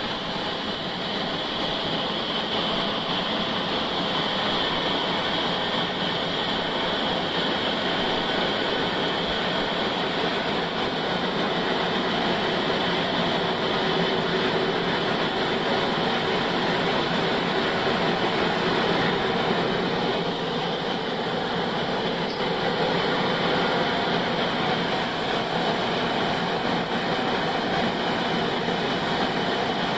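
Old band sawmill running steadily, its blade sawing through a log.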